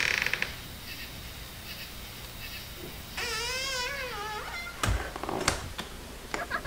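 A high, wavering cry with an even quiver, like a child wailing, starts about three seconds in and lasts about a second. A few sharp knocks or thumps follow near the end.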